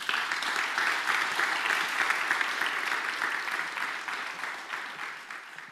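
Audience applauding, a dense patter of many hands clapping that begins at once and fades away over the last couple of seconds.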